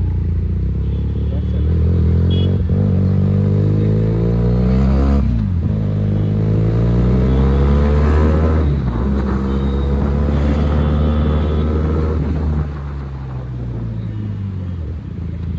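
QJ Motor SRK 400 parallel-twin motorcycle engine and exhaust accelerating through the gears. The pitch climbs, drops at each of three upshifts and climbs again, then falls as the throttle is eased off near the end.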